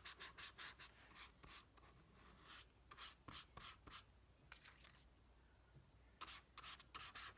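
Faint paintbrush strokes on paper: a quick, scratchy rubbing repeated several times a second, thinning out in the middle and picking up again near the end.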